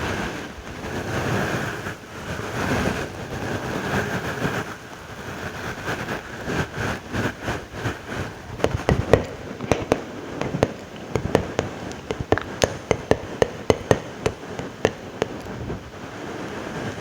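Close-miked ASMR mouth sounds: wet, hissy smacking at first, then, from about halfway through, a run of sharp wet clicks and pops, several a second.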